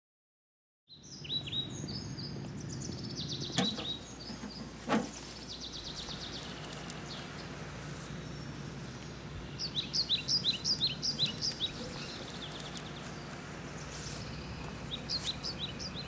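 Outdoor ambience: birds chirping in short bursts, including a quick run of repeated chirps about ten seconds in, over a steady low background rumble. Two short knocks or taps come about three and a half and five seconds in.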